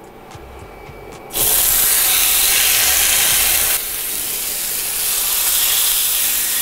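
Marinated lamb steaks sizzling loudly as they are laid into a frying pan of hot oil. The sizzle starts suddenly about a second and a half in and eases a little about halfway through.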